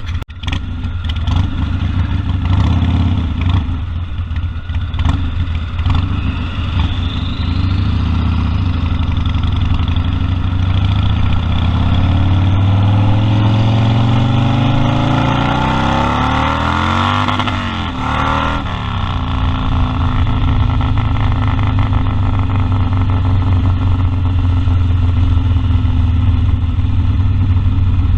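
Harley-Davidson Sportster Custom 1200's air-cooled Evolution V-twin running steadily under way, heard from the rider's seat. A little past halfway a sweeping rise and fall in tone swells and fades, as another vehicle passes close.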